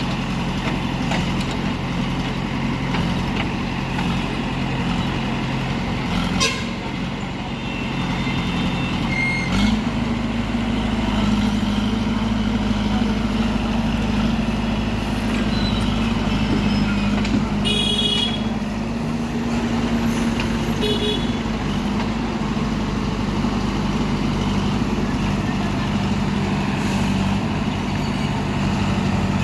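Heavy diesel engine running steadily, its revs stepping up about a third of the way in and then holding, with a few short high-pitched toots or squeals near the middle.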